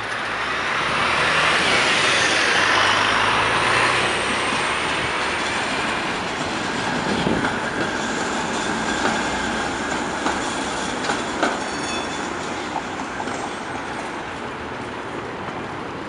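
Trams running through a tram-track crossing: steel wheels grind loudly on the curved rails, loudest in the first few seconds, then a steady high squeal, with a short run of clicks as the wheels pass over the rail joints about two-thirds of the way through.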